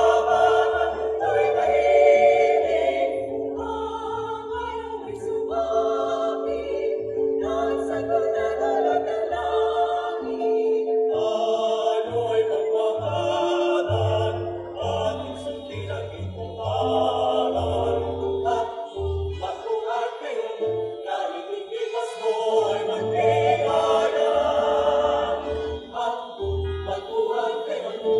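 Mixed choir of women's and men's voices singing in harmony, amplified through stage microphones and speakers.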